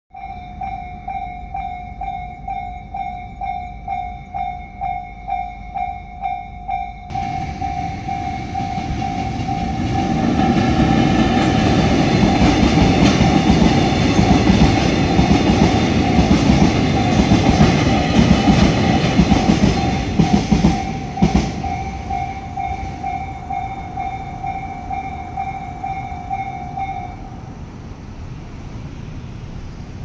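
A level-crossing warning bell rings, pulsing about twice a second, as an EF210 electric locomotive hauling eight tank cars passes over the crossing. The train's rumbling wheel-on-rail noise builds, is loudest for about ten seconds with some sharp clacks near the end, then fades. The bell stops a few seconds before the end.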